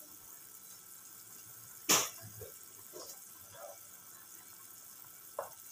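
Pot of instant noodle soup at a rolling boil, bubbling with a faint steady hiss. A single sharp knock about two seconds in, and a lighter one near the end.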